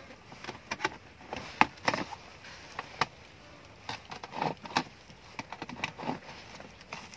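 Scattered knocks and snaps with rustling between them, the loudest about one and a half seconds in.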